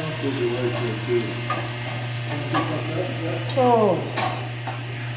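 A steady low hum, with people talking faintly in the background and a few light knocks; near the end a man's voice falls in a drawn-out 'oh'.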